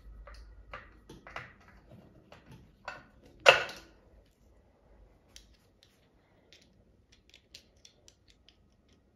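Screwdriver and screws clicking and tapping against the plastic base of an Ideal Automatic sewing machine as screws are set in from below, with one loud knock about three and a half seconds in. After that the clicks thin out to a few faint, scattered ticks.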